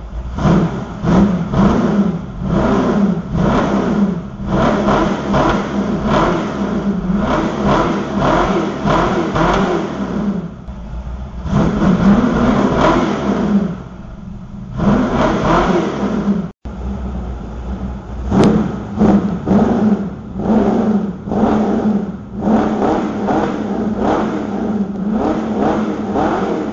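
Car engine revved again and again through a newly completed, fully welded exhaust system, its pitch rising and falling in quick blips, with a couple of short spells of quieter running between.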